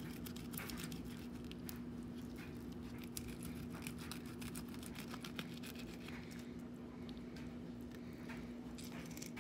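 Fillet knife cutting down along a panfish's backbone, a run of light scratchy clicks as the blade scrapes over the bones, over a steady low hum.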